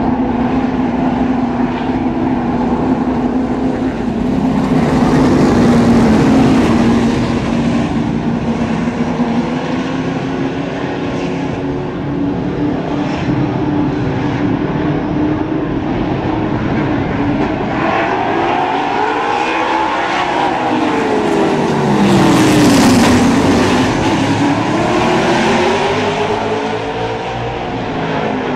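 A field of Outlaw Super Late Model stock cars running their V8 engines at racing speed, a dense, layered engine drone. It swells twice as the pack comes by, with the engine pitch rising and falling as cars pass.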